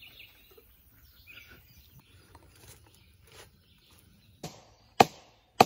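Faint bird chirps, then three sharp knocks near the end, about half a second apart, the middle one loudest.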